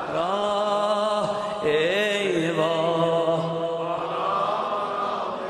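A male meddah chanting a Shia mourning lament (mərsiyə) in Azerbaijani, drawn out in long held notes. The voice bends and wavers in pitch about two seconds in, then settles into another long note.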